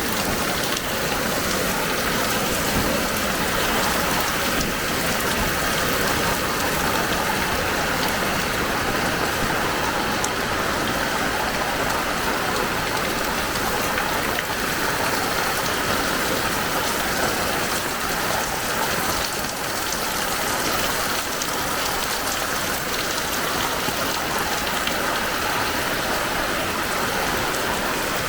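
Heavy rain falling and pattering on surfaces: a dense, steady hiss that holds even throughout.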